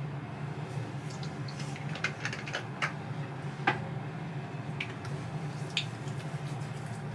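Small clicks and taps of a plastic toner bottle being handled during skincare, with one sharper click about halfway through, then soft pats of hands on the face near the end. A steady low hum sits under it all.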